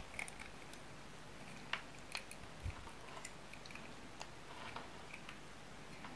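Faint, scattered small clicks and scrapes as hands turn and handle the plastic housing and parts of a disassembled Furuno GPS antenna.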